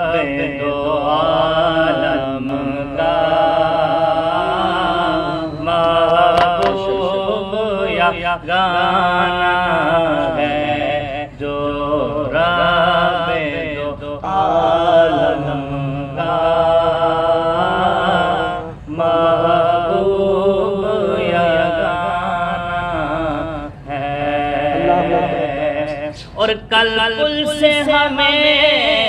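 A man singing a naat in long, drawn-out phrases with a wavering pitch on the held notes, pausing briefly between phrases.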